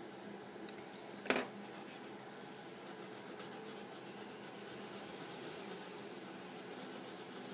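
Coloured pencil scratching on paper in quick back-and-forth shading strokes, which get faster and steadier from about three seconds in. There is a single knock about a second in.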